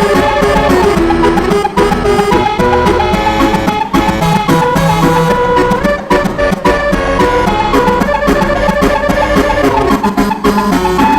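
A melody played on a multi-note basuri telolet horn, whose reedy tones sound like an accordion, over a DJ-remix dance beat.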